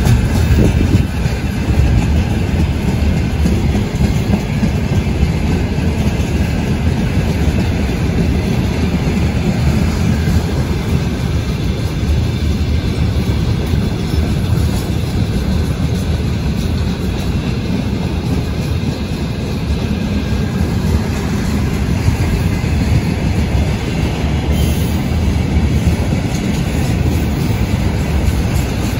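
Freight train wagons rolling steadily past on the rails.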